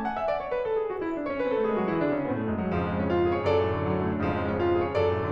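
Background piano music: a descending run of notes, then a steady flow of sustained piano chords.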